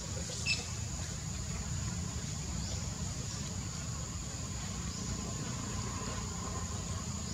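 Steady outdoor background noise: a low rumble under a constant high, thin whine, with one faint click about half a second in.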